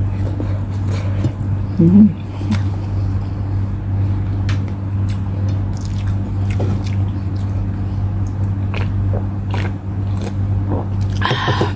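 Close-up mouth sounds of eating chicken wings and rice by hand: chewing, with many small wet clicks and smacks, over a steady low hum. Near the end come sips from a drink can, with a short noisy burst.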